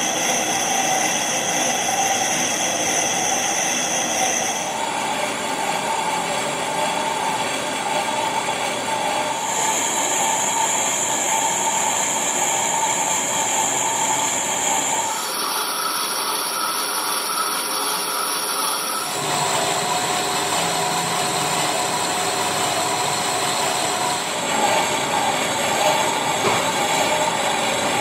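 Vertical lathe turning the outside of a cast iron pulley blank: the machine runs steadily, with the cutting tool's high, steady whine over a mechanical drone. The whine changes pitch abruptly every few seconds.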